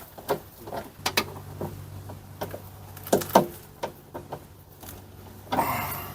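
Scattered clicks and knocks of parts and tools being handled while fitting a car's window regulator inside the door, over a low steady hum. A short rustling burst comes near the end.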